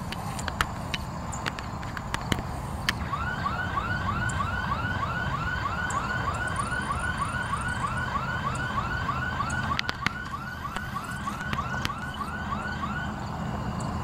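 Construction-site security alarm going off, a fast electronic yelp of rising whoops repeated about four times a second, set off by a vehicle stopping or slowing on the road beside the site. It starts about three seconds in and stops near the end.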